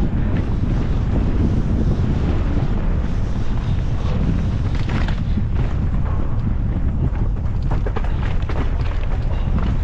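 Steady wind buffeting on the microphone from a fast mountain bike descent, with scattered knocks and rattles of the bike over rough trail.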